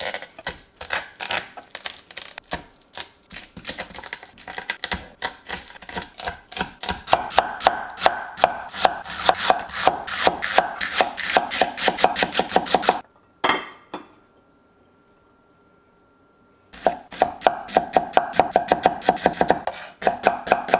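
Cleaver chopping garlic on a wooden cutting board in quick strokes, about four or five a second. The chopping stops for about three seconds past the middle, then starts again as shallots are cut.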